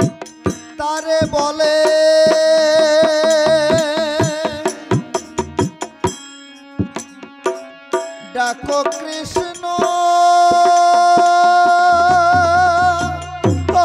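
Kirtan music: a khol (Bengali barrel drum) plays a quick, steady stroke pattern while a male voice holds long, wavering sung notes, about a second in and again from about ten seconds on. Between about five and eight seconds the drum plays mostly on its own, and deep bass strokes come in near the end.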